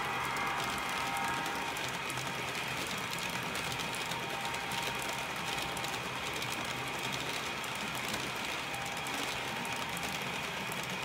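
Model freight train running along the track of a model railway layout: a steady, even rolling rattle of small wheels on rail with motor whir.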